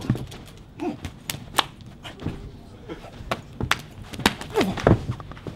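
Rapid, irregular series of sharp slaps and thuds from Wing Chun hand strikes landing on an attacker, with a few short voice sounds among them.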